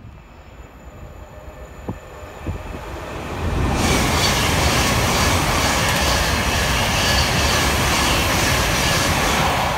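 Thameslink Class 700 electric multiple unit running past close along the platform: the rush of its wheels on the rails comes up about three seconds in and then holds loud and steady.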